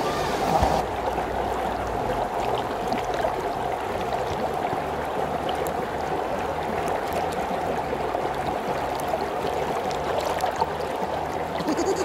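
Valley stream water flowing steadily, an even rushing that does not change.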